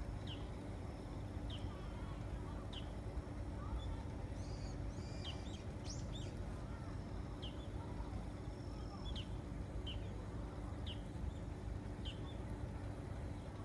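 A bird calling in short, high chirps repeated roughly once a second, with a brief flurry of higher chirps around the middle, over a steady low rumble.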